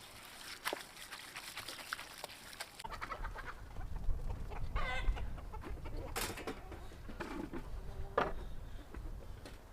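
Chickens clucking, with one longer wavering call about five seconds in, scattered sharp clicks and a low rumble underneath.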